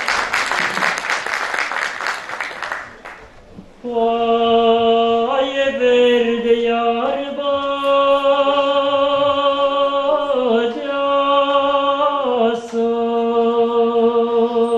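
Audience applause for about three seconds, then a young man's solo voice singing long held notes unaccompanied, sliding between pitches, as the opening of a Romanian folk song.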